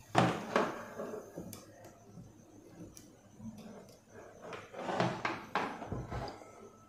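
Light clicks and rustles of wires and a soldering iron being handled on a circuit board while a wire is soldered on, loudest just after the start and again about five seconds in.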